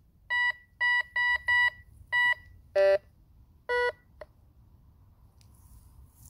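HYTIREBY metal detector's control box beeping: five short identical high beeps in quick succession, then two lower-pitched beeps and a small click, as its pinpoint button is pressed and held.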